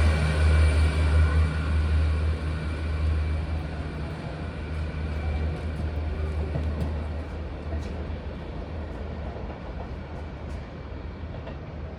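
A train pulling away from the platform, its low running rumble fading steadily as it moves off.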